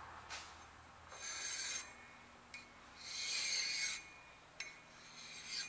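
Flat file rasping against the outer rim of a cast flywheel spinning in a lathe: two longer strokes and several short touches, used to smooth out turning marks on the rim.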